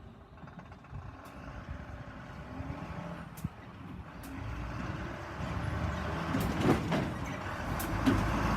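Diesel local train approaching, its engine and running noise growing steadily louder, with a few sharp clicks along the way.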